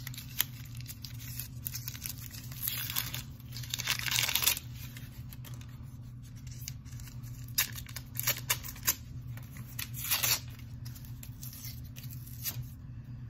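Gift-wrapping paper being torn and crumpled by hand in several rustling bursts, the loudest about three to four seconds in.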